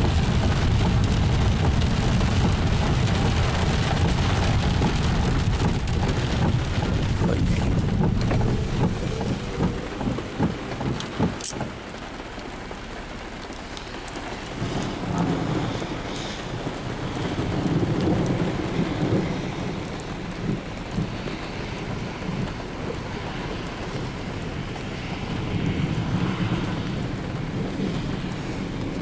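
Heavy rain beating on a car's roof and windshield, heard from inside the car. The rain eases about twelve seconds in, and low rumbles of thunder swell and fade several times after that.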